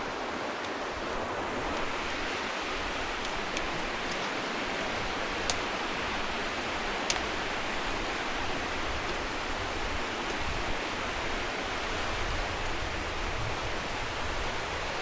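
Steady rushing of a nearby mountain creek, with a few short sharp clicks around the middle.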